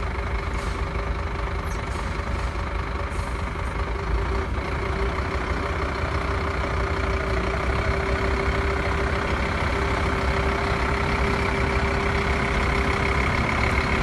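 Scania P270 truck's diesel engine running steadily, with a steady high whine over the engine noise.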